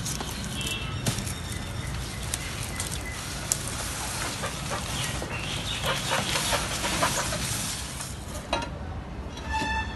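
Sugarcane leaves and stalks rustling as the cut canes are handled in the potted clump, with a denser run of small snaps and clicks about halfway through.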